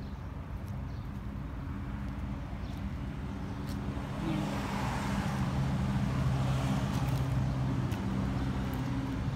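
A motor vehicle's engine humming low and steady with road hiss. It grows louder about four seconds in and eases near the end, as a vehicle passes close by.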